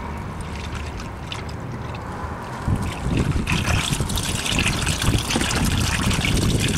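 Engine oil draining in a steady stream from a Toyota Corolla's oil pan drain hole and splashing into a catch pan lined with a plastic trash bag. It gets louder from about three seconds in.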